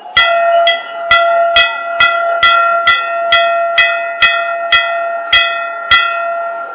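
A bell struck about twice a second, thirteen clear ringing strokes that stop about six seconds in, over the noise of a crowd.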